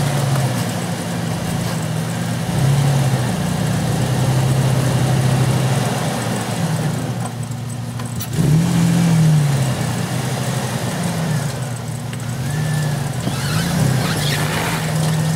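Jeep Wrangler TJ's engine running at low speed while crawling over rocks, its pitch rising and falling several times as the throttle is fed on and off. There is one sharp knock about eight seconds in.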